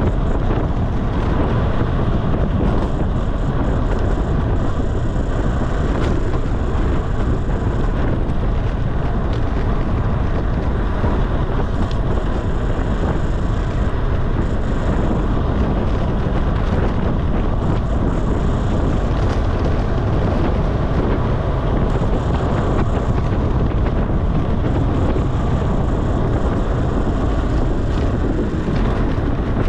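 Steady, loud wind buffeting on the microphone of a road bike descending at speed, mixed with rolling road noise.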